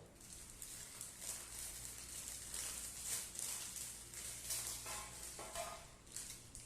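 Irregular scratching and rustling of kitchen work, made up of many short strokes, with faint music coming in about five seconds in.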